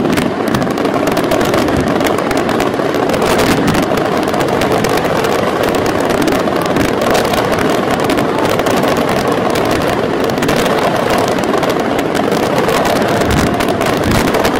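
Daytime fireworks barrage: a dense, unbroken stream of rapid bangs and crackles from a ground-level battery, so close together that they run into one continuous sound.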